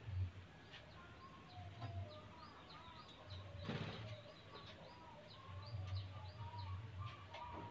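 Wingbeats of a white-rumped shama flying across its cage, a brief flutter a little under four seconds in, over faint, rapid high chirping from birds.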